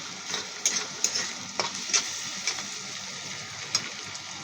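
Onions and garlic frying in hot oil in a pan, a steady sizzle, with a spatula scraping and knocking against the pan as they are stirred, a sharp click every half second to a second.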